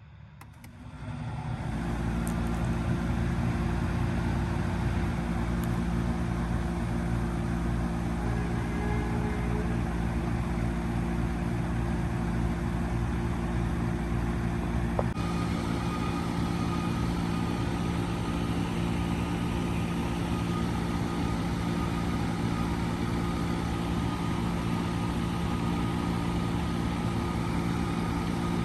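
2005 Trane XL1200 3.5-ton packaged heat pump starting up in heat mode: the hum of the compressor and fans rises over about two seconds, then settles into a steady running hum with an airy rush. About fifteen seconds in the sound shifts abruptly and a faint steady whine joins in as the unit settles into running.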